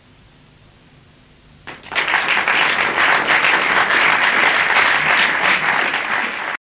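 Concert audience applauding, breaking in suddenly about two seconds in and cut off abruptly just before the end.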